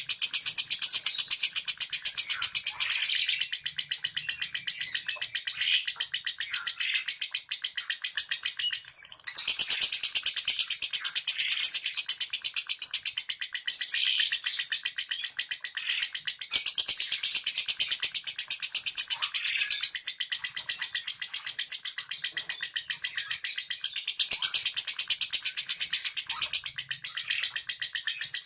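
Lovebird singing its rapid 'ngentik' ticking song: long runs of fast, high clicking notes lasting several seconds each, broken by short pauses, with brief chirps over the top.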